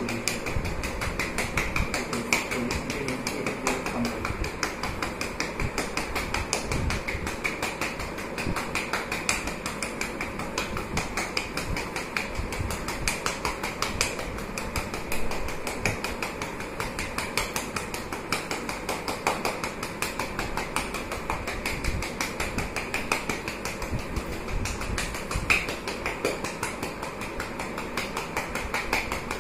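Rapid, steady patting of a gloved hand on a patient's back: chest percussion to loosen secretions from the lungs.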